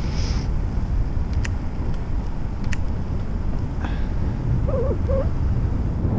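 Wind rushing over the microphone of a camera on a moving bicycle, with a steady low rumble of tyres on an asphalt trail. Two light ticks are heard, about a second apart.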